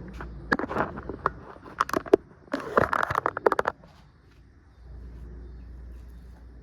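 A quick, irregular run of sharp cracks and knocks from the plastic body of a portable washing machine being broken apart, lasting about three seconds, then a faint low steady rumble.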